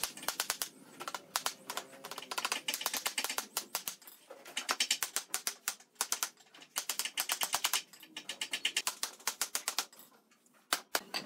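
Hammer tapping along the top rail of a wooden slatted panel, knocking the rail down onto the slats. It comes in quick runs of light strikes, several a second, with short pauses between runs.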